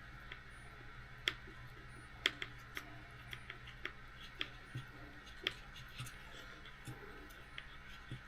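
Faint, irregular small clicks and ticks, a few of them sharper, from a hand screwdriver driving screws into the small plastic chassis of a 1/18-scale RC car.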